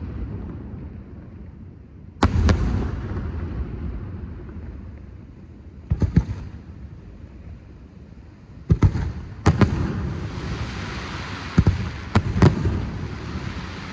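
Firework display: sharp bangs of bursting fireworks every couple of seconds, each followed by a rolling rumble. A quick cluster of bangs comes about two-thirds of the way through, with a crackling hiss, and more bangs come near the end.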